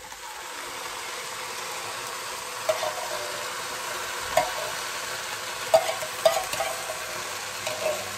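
Rice and mushrooms frying in a multicooker bowl, sizzling steadily as coconut milk is poured in from a tin. The sizzle builds over the first second. Several sharp clinks and scrapes follow as a spoon works the thick milk out of the tin.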